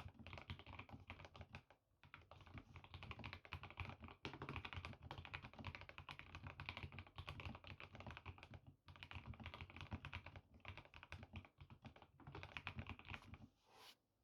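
Typing on a GK64X mechanical keyboard with lubed Gateron CJ linear switches, lubed stock stabilizers and KBDfans Sakura keycaps: rapid keystrokes in runs with short pauses, stopping shortly before the end.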